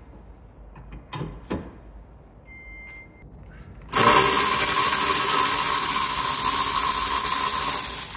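A few light metallic clicks, then about halfway in a small handheld rotary tool starts abruptly and runs at high speed with a steady high-pitched whine for about four seconds before stopping.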